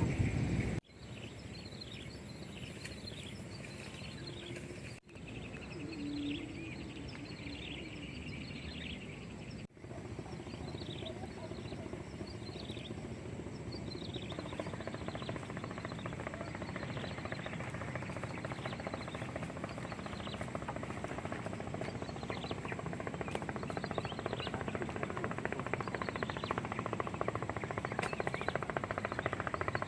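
Forest ambience: many short, falling chirps from small animals calling over a steady hiss, with abrupt cuts a few times in the first ten seconds. The hiss grows denser and louder from about halfway.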